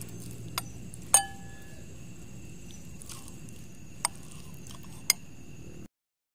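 A metal spoon clinking against a bowl four times, the loudest about a second in with a brief ring, over a steady high chirring of night insects. The sound drops out just before the end.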